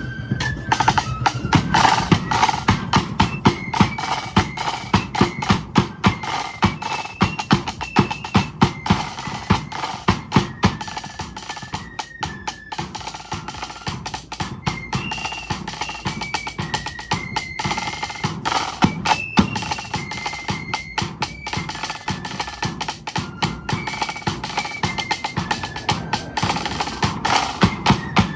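Marching flute band playing a tune: flutes carry a stepped melody of held notes over fast snare drum rolls and a steady bass drum beat.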